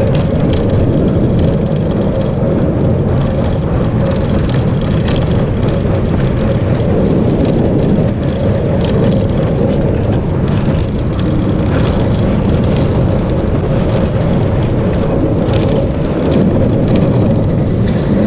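Steel roller coaster train running along its track at speed: a steady, loud rumble of wheels on steel rails, with scattered short clacks.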